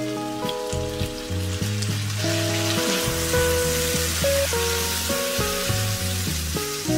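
Pork belly and carrot strips sizzling in a hot pan as soy sauce hits them, with a spatula stirring and tossing the mixture. The sizzle grows louder about two seconds in. Background music plays underneath.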